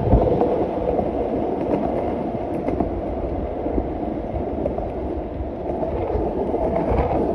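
A steady low rumble of wheel and wind noise while travelling along a paved path.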